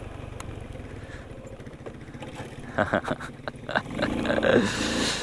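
Sanya X50 110cc scooter engine running while it is ridden over loose sand. From about three seconds in come knocks and rattles of the bike jolting on the rough ground, and near the end a rushing noise.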